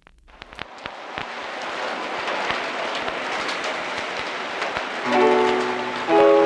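Opening of a lounge-style cover recording: a rushing noise with scattered crackles fades in, and about five seconds in a held chord of the song's intro comes in over it.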